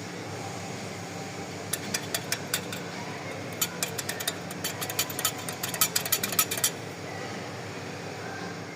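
Rattling from the rear brakes of a BMW X7 M60i: a few sharp clicks about two seconds in, then a quick irregular run of rattles lasting about three seconds, over a steady hum.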